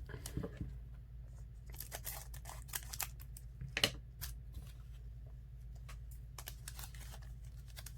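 Trading-card pack wrapper being torn open and crinkled by hand: faint, scattered crackles and small tears, with one sharper crackle about four seconds in.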